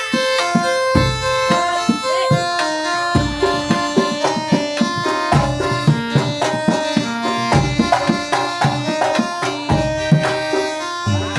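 Traditional Javanese folk-performance music: hand drums beating a busy rhythm under a reedy wind instrument playing a sustained, wavering melody.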